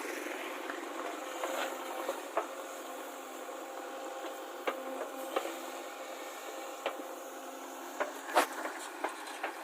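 A JCB backhoe loader's diesel engine running steadily, with sharp clanks and knocks scattered through and the loudest knock near the end.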